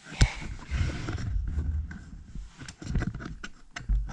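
Low rumbling handling noise from a handheld camera, with scattered clicks and knocks and one sharp knock just after the start.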